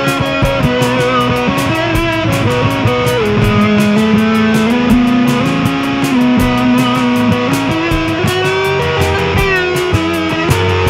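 Band music led by guitar, with bass underneath and a steady beat.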